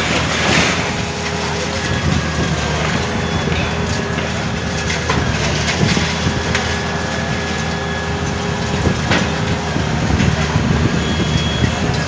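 Heavy demolition machinery's engine running steadily, with scattered knocks and cracks from the building being broken up.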